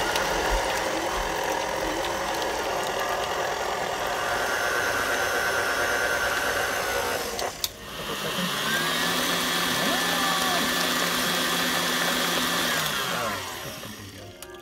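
KitchenAid stand mixer motor running steadily, its beater churning a thick pumpkin cheesecake filling in a stainless steel bowl. There is a brief break about halfway through, then it runs again and winds down near the end.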